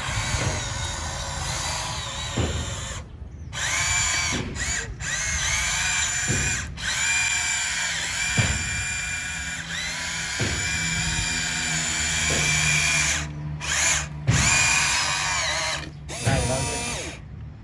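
Small electric motors and gearboxes of a Huina radio-controlled toy excavator whining as the boom, arm and bucket move, the pitch rising and falling with load and cutting out briefly several times as one movement ends and the next starts.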